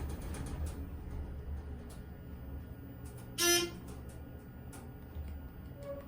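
ThyssenKrupp hydraulic elevator's 'Dover buzz' buzzer sounding once about halfway through, a short buzzy tone, over the low steady hum of the car.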